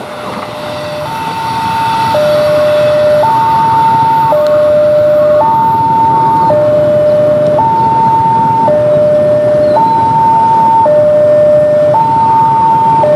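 Electronic two-tone warning siren sounding a hi-lo pattern, switching between a lower and a higher pitch about once a second. It swells to full loudness over the first two seconds, then holds steady over a low rumble.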